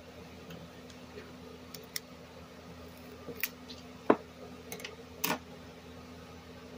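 Scissors snipping through a frozen freezer pop in its plastic sleeve: a few scattered clicks and snips, the loudest and sharpest about four seconds in as the blades cut through.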